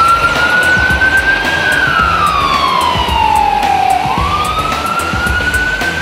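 Fire engine siren sounding a wail: a quick rise to a high pitch that holds, then a slow fall over a few seconds, and a second rise about two-thirds of the way in.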